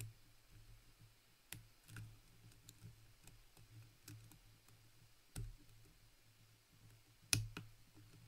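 Faint, scattered metallic clicks of a hook pick working the pins of an Assa Twin 6000 pin-tumbler lock under tension, with one sharper click about seven seconds in. The clicks come as pins are set while others drop.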